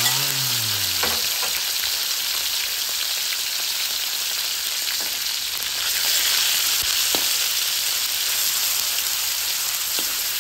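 Marinated raw pork slices sizzling in hot oil in a wok, a steady frying hiss. A metal spatula scrapes and taps the wok now and then as the meat is stirred.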